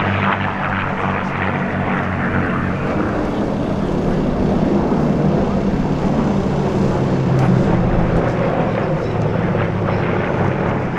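Piston engines of World War II-era propeller warplanes flying past, a steady droning with a slowly shifting pitch.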